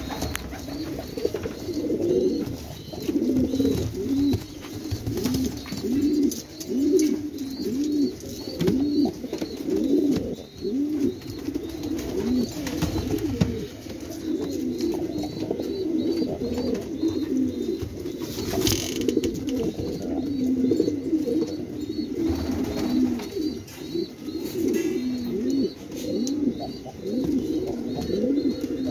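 Several domestic pigeons cooing continuously, their low, rolling coos overlapping one after another. A faint high chirp repeats a few times a second behind them.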